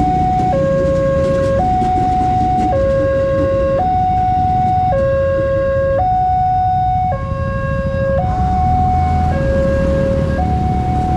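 Railway level-crossing warning alarm sounding. It is an electronic two-tone signal that alternates between a lower and a higher pitch, each tone held about a second, warning that a train is at the crossing.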